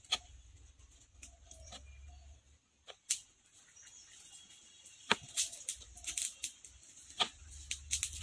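Knife slicing small tomatoes held over a wooden cutting board, with the pieces dropping onto the board: a scattering of sharp clicks and taps, a few in the first half and more frequent in the second half.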